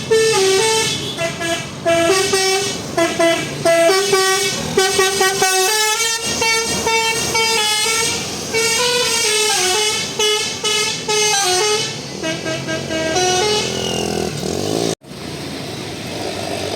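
A bus's telolet basuri musical air horn plays a fast melody of stepping notes, several horn tones sounding together. Near the end it cuts off suddenly, giving way to steadier, noisier background sound.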